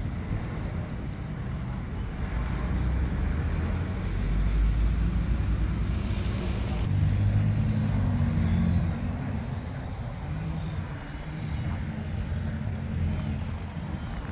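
Road traffic: motor vehicles passing with a low engine rumble, louder in the middle.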